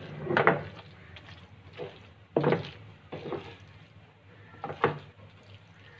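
Plastic spatula scraping and knocking against a non-stick frying pan as a chicken and vegetable filling is stirred and sautéed, about five strokes at uneven intervals of roughly a second.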